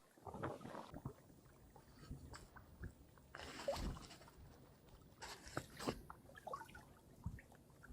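Small lift net for baitfish being handled at the water's edge: scattered light knocks and rustles with a couple of brief splashing, sloshing bursts, about halfway through and again a little later.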